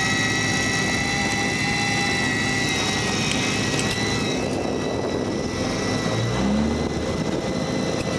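Steady machine drone on a tuna fishing boat, with a high whine over it that fades about halfway through and a brief low rising note about six seconds in.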